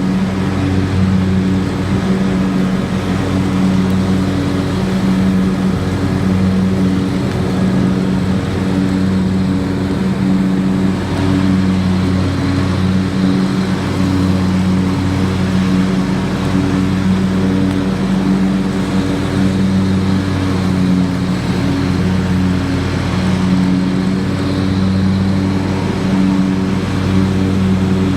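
Riding lawn mower's engine running steadily while mowing, a loud, even hum that swells and dips slightly now and then.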